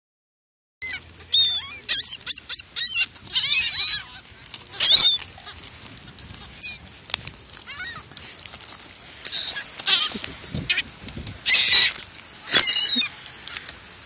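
A flock of laughing gulls calling, many short high calls overlapping in quick runs, starting about a second in and coming in loud clusters.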